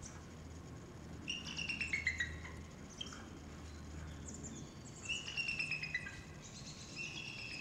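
Bald eagle calling: series of high, thin chirps, each run stepping down in pitch over about a second, heard twice with another run starting near the end.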